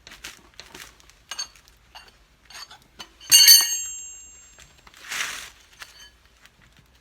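Metal tools and parts clinking and knocking during a rear cart tyre change, with one loud ringing metallic clink a little past three seconds in and a short scraping rush around five seconds.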